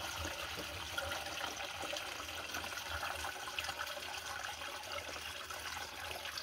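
Water from a garden hose running steadily into the plastic tank of a Firman FKS16 battery knapsack sprayer through its mesh strainer basket: a continuous splashing fill.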